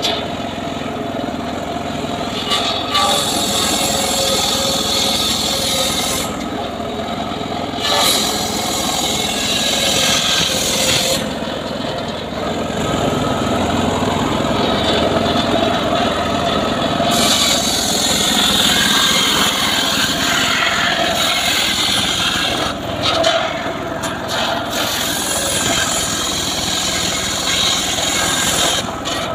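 Engine-driven homemade portable sawmill running and cutting a log. The engine runs steadily throughout, while the high sawing hiss drops away for stretches and comes back as the blade goes in and out of the wood.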